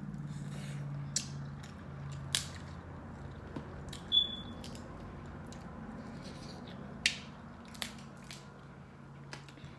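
Crab leg shell being cracked and picked apart by hand: a handful of sharp, scattered snaps and clicks over a low steady hum.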